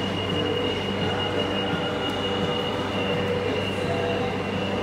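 Madrid Metro train standing at an underground platform, its onboard electrical equipment running with a steady high-pitched whine over a lower hum.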